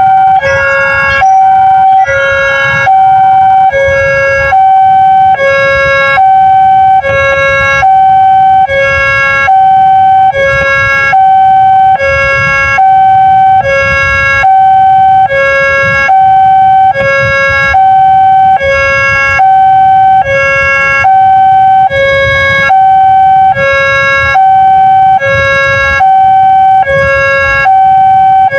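Railway level crossing warning siren: an electronic two-tone alarm alternating a high and a low tone, one high-low cycle about every 1.6 seconds. It signals that a train is approaching and the crossing is closing.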